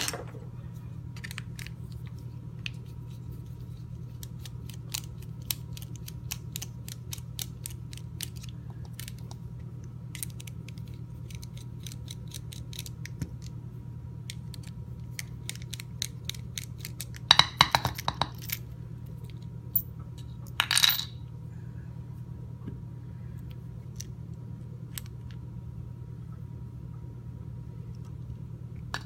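Small metal clicks and clinks from a Phillips screwdriver working screws out of a padlock body. Twice, a little past the middle, comes a louder clatter of small metal parts dropping onto a hard surface. A steady low hum runs underneath.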